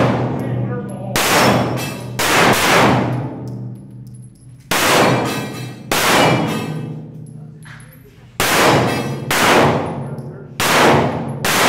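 Handgun shots, about nine, mostly in pairs roughly a second apart, each followed by a long echo off the concrete walls of an indoor range.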